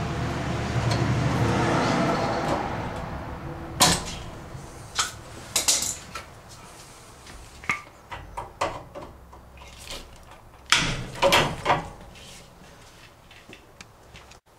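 Handling noise for the first few seconds, then a dozen or so irregular sharp clicks and knocks of hand tools and pipe fittings during plumbing work. The loudest strikes come about four seconds in and again around eleven seconds in.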